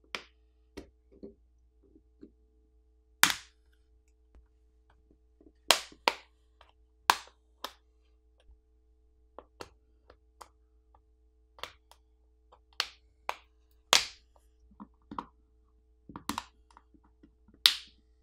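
The plastic catches of a Unihertz Jelly Max smartphone's back housing snapping loose one by one as a plastic pry pick is worked along the seam between the back cover and the frame: a string of sharp clicks and snaps at irregular intervals.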